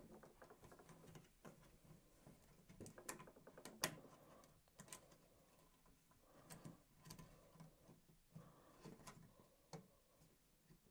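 Faint clicks and taps as fingers press the push-in wire terminals on a Nest thermostat base plate and handle the thin thermostat wires, scattered through near silence, the clearest click about four seconds in.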